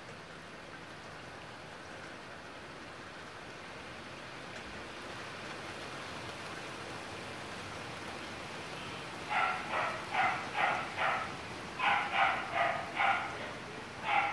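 Heavy rain falling steadily, getting slightly louder over the first few seconds. About nine seconds in, a dog starts barking in quick runs of three or four barks, louder than the rain.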